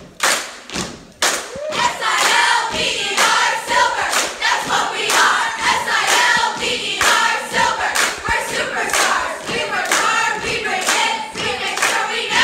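A group of teenagers singing a chant together in unison over steady clapping, about two claps a second; the voices come in about two seconds in.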